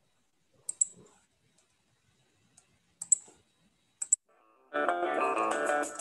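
Computer mouse clicking three times, each a quick double click, then upbeat guitar music starts abruptly near the end as the channel's bumper clip begins to play.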